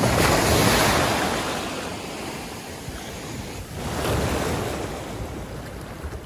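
Waves breaking on the beach. One breaks right at the start and washes out over a couple of seconds, and a second breaks about four seconds in, with some wind on the microphone.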